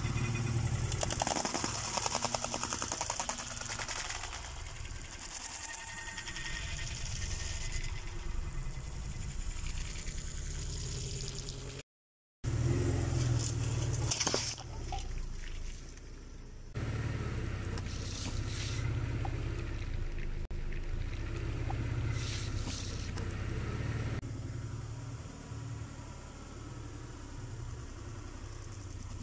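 A car engine running at low speed, with tyres rolling slowly and scattered cracks and crunches as the wheels crush objects.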